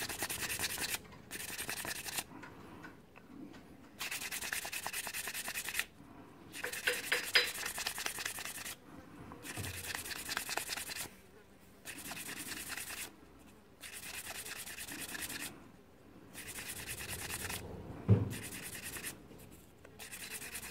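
Hand scrubbing and rubbing on a chrome brake caliper piston, a dry scratchy sound in runs of one to two seconds with short breaks between strokes.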